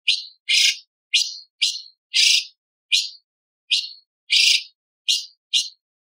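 Orange-bellied leafbird singing a string of short, sharp, high notes, about two a second. Several of them are longer, harsher rasping notes.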